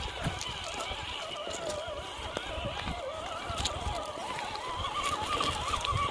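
Electric motor and drivetrain of a Traction Hobby Cragsman RC crawler whining as it crawls over loose rocks. The pitch wavers with the throttle and rises partway through, over scattered clicks of tyres and stones.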